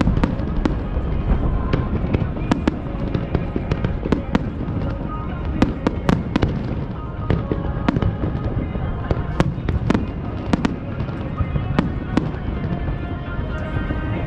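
Fireworks bursting in quick succession, a dense run of sharp bangs and crackles over a continuous rumble. Background music comes in faintly near the end.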